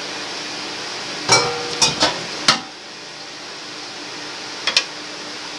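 Stainless steel cooking pot knocked and clinked: a cluster of four sharp metallic taps with brief ringing about a second and a half in, and two quick taps near the end, over a steady low hiss.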